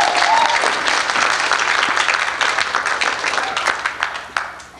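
Audience applauding with many hands clapping, the applause thinning and dying away near the end.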